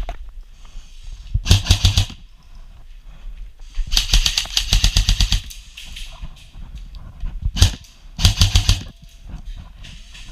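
Airsoft electric rifle firing three short full-auto bursts of rapid, evenly spaced shots, the middle one the longest, with a single shot just before the last burst.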